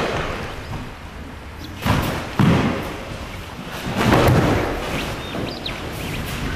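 Dull thuds of a body landing on a padded training mat during aikido throws and breakfalls. There is one right at the start, a double thud about two seconds in, and a longer one about four seconds in.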